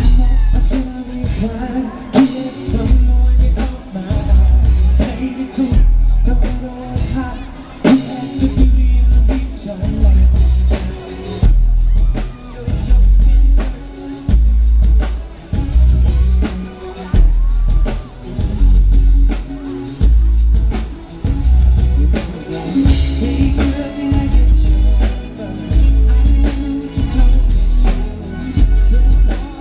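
Amplified live pop music at a sound check: drums and singing over heavy bass notes that come about every two seconds.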